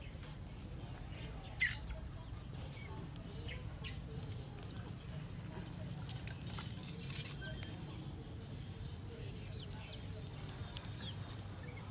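Chickens clucking in the background, with one sharper call about a second and a half in, over light clicks of thin kindling sticks being laid across the grate of a clay charcoal stove.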